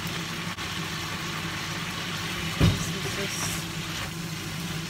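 Vegetables sizzling and simmering in a frying pan over a steady low hum, with one sharp knock about halfway through.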